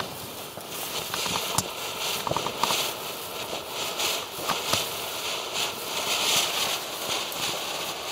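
Weco Luftikus firework fountain burning: a rushing hiss of sparks that swells and fades in surges, with scattered crackling pops.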